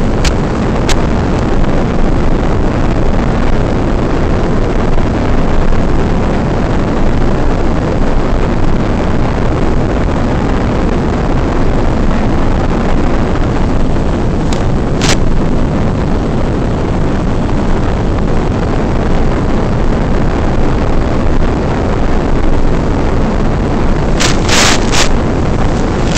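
Steady, loud rushing noise with no clear pitch, the in-flight audio of an RC Carbon Cub S2's analog FPV feed. Short crackles come about 15 seconds in and again near the end, where the video signal breaks up.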